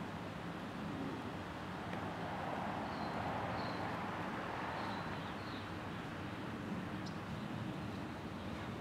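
Outdoor street ambience: a steady hiss of traffic, with a vehicle passing that swells and fades around the middle, and a few faint bird chirps.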